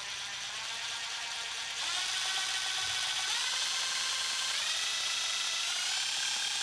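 Chicago Electric 12-volt 1/4-inch hex impact driver running with no load. Its motor whine steps up in pitch about four times as the variable-speed trigger is squeezed through its speed settings.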